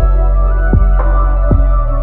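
Background music: gentle new-age instrumental with sustained pitched notes over a steady beat of soft kick drum thumps.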